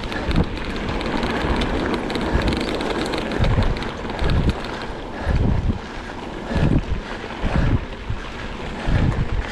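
Wind buffeting the microphone of a camera riding on a moving bicycle, in gusty low thumps over a steady rush of tyre noise, with light fast clicking and rattling from the bike.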